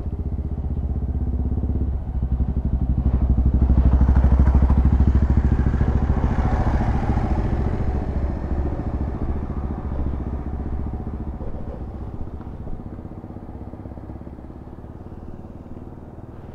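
Motorcycle engines pulling away, louder from about two seconds in, then fading gradually as the bikes ride off.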